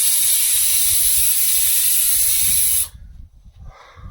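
Pressure cooker whistle venting steam: a loud, steady hiss that cuts off abruptly about three seconds in.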